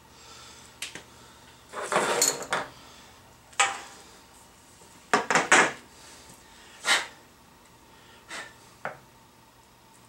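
Hard plastic clacking and knocking of PVC pipe lengths and fittings being handled and fitted together: a scatter of sharp knocks, with short clattering runs about two seconds in and again around five and a half seconds.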